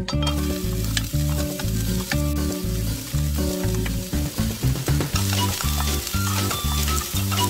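Julienned carrots sizzling in hot oil in a frying pan as they drop in and are stirred. The sizzle starts right at the beginning. Background music with a steady beat plays underneath.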